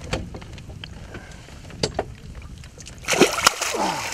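A pike held in the water at a boat's side kicks free of the angler's hand and swims off, making a loud splash about three seconds in. Before it there are only soft water sounds and a few small knocks.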